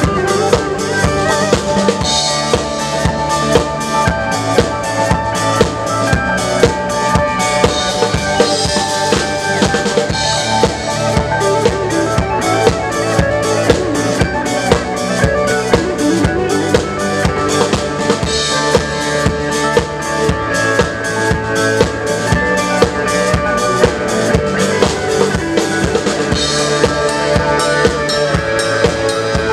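A drum kit played live in a rock band, with kick drum, snare and cymbals driving a steady beat up close. A guitar holds notes underneath, and the drums are the loudest part.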